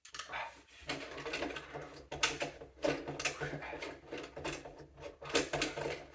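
Rotary telephone dial being wound round and spinning back, a run of irregular mechanical clicks and clatters as a number is dialled.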